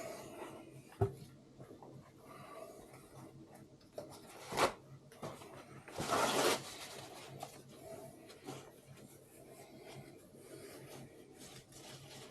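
Hands and tools working on a Cummins diesel cylinder head's valves: light rubbing and scraping, a sharp knock about a second in, a click a little over four and a half seconds in, and a short louder noisy burst around six seconds in.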